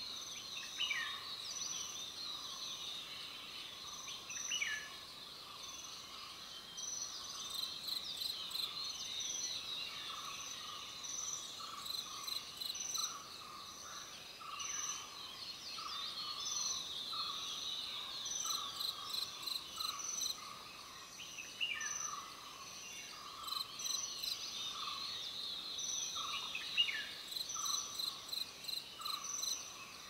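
A chorus of insects, crickets among them, calling in rapid repeated pulses at several pitches at once. A few short falling whistles from birds cut through it now and then.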